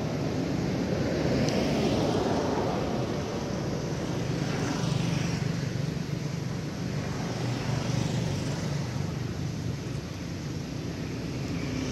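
A steady engine drone with a low hum, swelling and easing slightly every few seconds.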